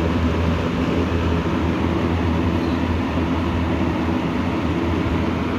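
A 1978 Lakewood K223 box fan running on high speed: a steady rush of moving air over a low, even motor hum.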